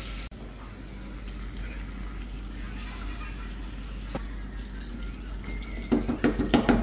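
A hiss of water poured into the hot oily sauce cuts off right at the start, leaving the sauce simmering faintly in a frying pan over a steady low hum. Near the end comes a quick run of knocks and scrapes as chopped fresh pepper is tipped in from a plastic bowl against the wooden spatula and pan.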